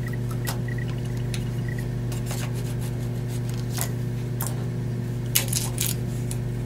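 Scattered light clicks and taps of a center finder and marker being handled against a cast resin-and-burl bracelet blank while its centre is marked, with a small cluster of taps about five and a half seconds in. A steady low hum sits underneath and is the loudest thing.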